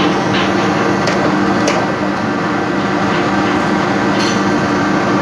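Loud, steady engine-room machinery drone with several held hum tones, and a few sharp metallic clinks of hand tools on engine parts, about a second in, shortly after, and near the end.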